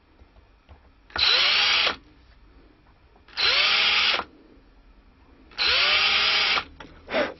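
Electric drill with a small bit boring pilot holes into a wooden dulcimer headstock for the tuners' locating pins: three short runs of about a second each, each rising in pitch as the motor spins up and then running steadily.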